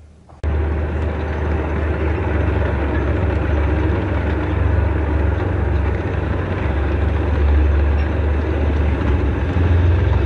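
Heavy diesel engine of tracked armoured vehicles, a tank on the move, running as a steady low rumble that starts abruptly about half a second in.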